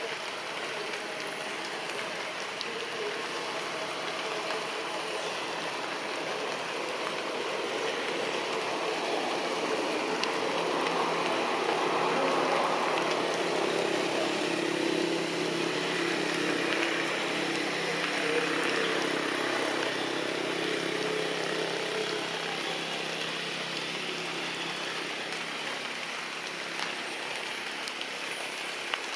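Steady outdoor hiss with a motor vehicle's engine passing, growing louder about a third of the way in and fading again well before the end.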